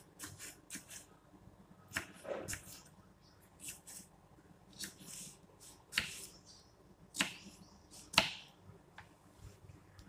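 Kitchen knife dicing cucumber on a wooden chopping board: crisp, irregular cuts and taps of the blade on the wood, about one a second, the loudest a little after 8 seconds in.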